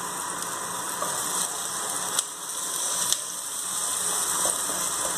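Chopped onion and bell pepper sizzling as they fry in a hot clay pot, stirred with a wooden spoon, with a few sharp clicks of the spoon against the pot.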